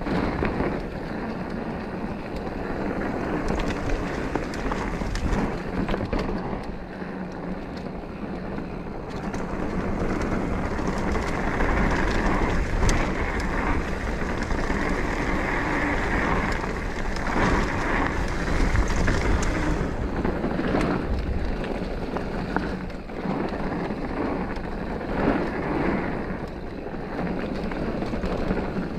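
Mountain bike riding dirt singletrack: tyres rolling over the trail with wind noise on the microphone and frequent knocks and rattles from the bike over bumps.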